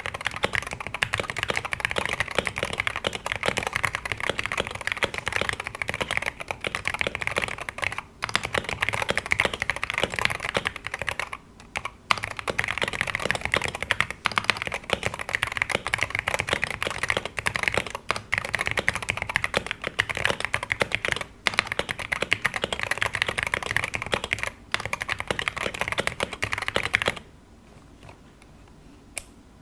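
Continuous typing on a Wooting 60HE keyboard with Gateron Lekker magnetic switches and stock PBT keycaps, in a Tofu 60 Redux tray-mount case dampened with foam, tape and O-ring mods. There are a few brief pauses, the typing stops a little before the end, and one lone keystroke follows.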